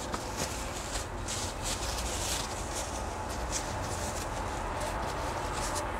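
Paper towel and plastic bag wrapping rustling and crinkling in the hands as a potted succulent is unwrapped, over a steady low rumble.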